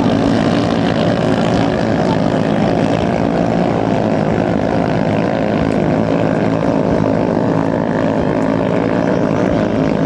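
Small 6–7 hp single-cylinder engine of a ketinting racing longtail boat running flat out, a loud, steady buzzing drone as the boat planes across the river.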